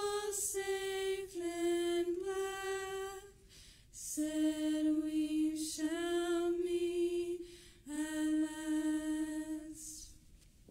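Three women singing together without accompaniment, in long held notes. There are short breaks between phrases, and the song closes on a held note near the end.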